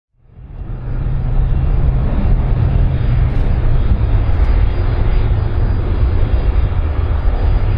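Airplane engines making a loud, steady rumble that fades in over the first second and holds, heaviest in the low range.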